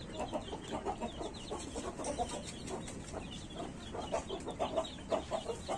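Desi hens clucking softly as they feed, in many short, scattered clucks.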